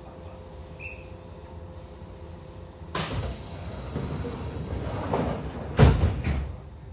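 Kintetsu 2800 series commuter car's sliding doors closing: a sudden rush of noise about three seconds in as the doors move, then a loud thud as they shut near the end.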